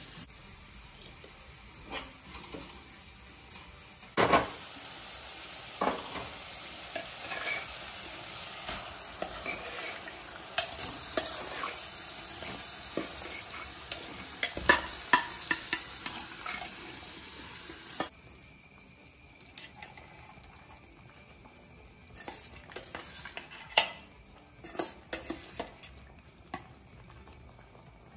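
Food sizzling in a hot pan, starting suddenly about four seconds in and stopping about fourteen seconds later, as boiled jackfruit seeds and potatoes are spooned into the masala. A metal spoon scrapes and clinks against the pan throughout. After the sizzle stops, there are only scattered spoon scrapes and knocks as the mixture is stirred.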